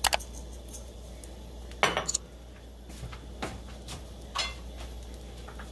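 A metal cooking utensil clinking against a nonstick griddle: about four short, sharp knocks, the loudest about two seconds in.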